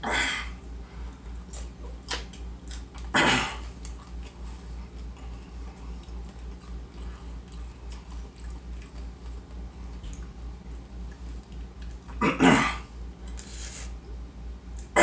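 A man sneezing in three sharp bursts, the second about three seconds after the first and the third some nine seconds later. His nose is irritated by a Carolina Reaper One Chip Challenge chip.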